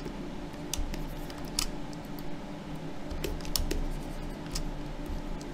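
Scattered light clicks from a computer mouse and keyboard being worked, about half a dozen, over a steady low hum.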